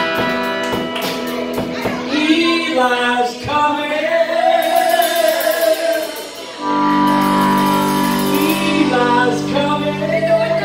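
Live band of electric guitars, bass, drums and organ playing, with a singer's voice over it. About two-thirds in the band settles onto a long held chord while the voice carries on.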